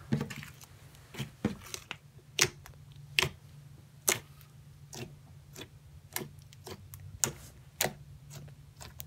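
Fingers poking and pressing orange slime, giving irregular sharp clicks and pops, about one or two a second.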